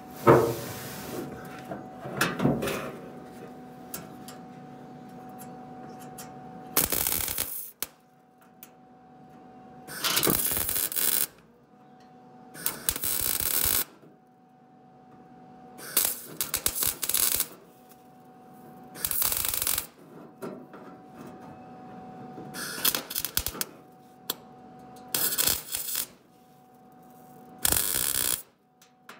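110 V Lincoln MIG welder laying tack welds on sheet steel: about eight short bursts of arc crackle, each a second or less and a few seconds apart, with a steady hum between them. The welding is uneven, which the welder puts down to kinks in the line keeping the wire from feeding smoothly. A sharp knock comes just after the start and another about two seconds in.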